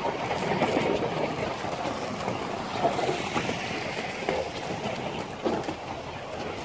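Wooden runners of a wicker basket toboggan sliding fast down a wet asphalt lane, a steady rushing scrape, with the drivers' shoes scuffing the road alongside.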